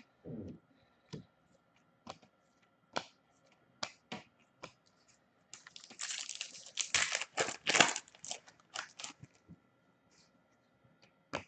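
A hockey card pack's wrapper being torn open and crinkled, a dense crackling spell from about five and a half to nine and a half seconds in. Scattered clicks and taps of cards being handled come before and after it.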